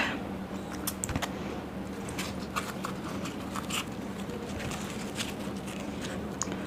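Faint scattered crackles and soft taps of hands handling a puri and pressing it into paneer butter masala, over a low steady hum.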